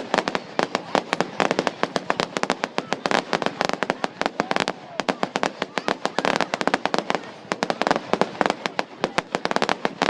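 Fireworks crackling: a dense, irregular stream of sharp pops and bangs, many a second, without a break.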